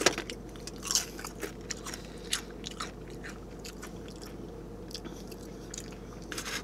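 Close-up chewing and crunching of tortilla chips dipped in salsa, in scattered short crunches, the loudest right at the start and about a second in.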